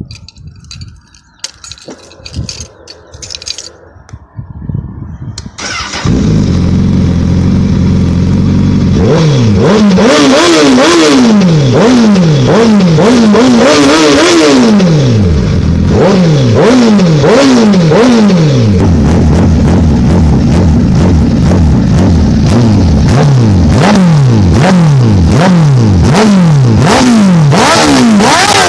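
2017 Honda CBR1000RR SP2's inline-four engine through a Toce slip-on exhaust, which is extremely loud. After a few seconds of faint knocks it starts about six seconds in and idles. It is then blipped over and over in short revs that rise and fall, with a brief return to idle midway.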